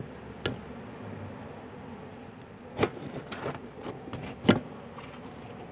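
A few sharp clicks and knocks of parts being handled, one early, then a cluster of taps over about two seconds with the loudest knock about four and a half seconds in.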